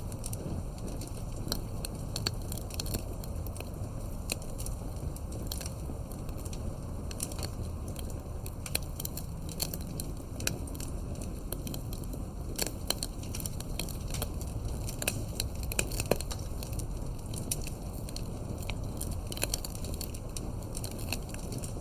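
Wood campfire burning: irregular crackles and pops of the burning wood over a steady low rumble of the flames, with a few louder pops scattered through.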